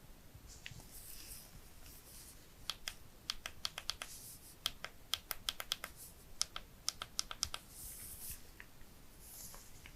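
A quick, irregular run of light typing clicks lasting about five seconds, with soft rustling just before and after.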